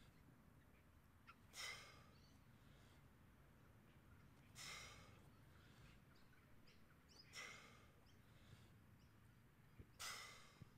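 A man exhaling forcefully, one breath out with each side lunge: four in all, about three seconds apart.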